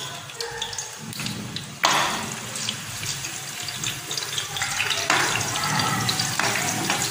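Sliced onions sizzling and crackling in hot oil in an aluminium pot, stirred with a slotted spoon, as the oil for a tadka is heated. The sizzle jumps suddenly louder about two seconds in, as more onion goes into the oil, and steps up again about five seconds in.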